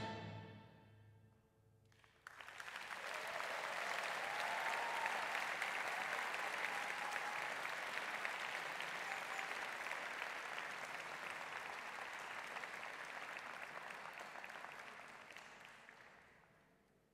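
A Chinese orchestra's final chord dies away, ringing in a large concert hall. About two seconds in, the audience starts applauding suddenly; the applause holds steady and fades out near the end.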